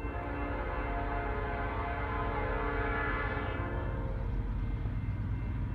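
Approaching freight locomotive's multi-chime air horn sounding one long blast that swells and then fades out about four seconds in, over the low rumble of the train.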